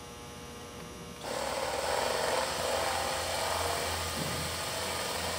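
Power drill starting about a second in and then running steadily, its bit boring through thin aluminum sheet, drilling through an existing hole to transfer it into the piece below.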